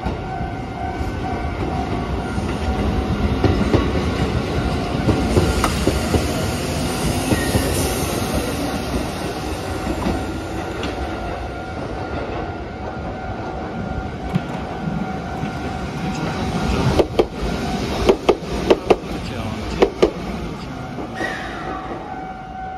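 A train running, a rumble that swells a few seconds in and eases off, then a quick run of sharp wheel clacks over rail joints near the end. A steady high tone sounds throughout.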